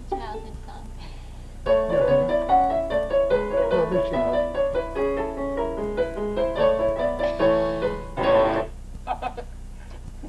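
Piano playing a Hungarian folk tune: a few light notes, then a busy, full passage from about two seconds in that stops with a loud chord near the end, followed by a few soft notes.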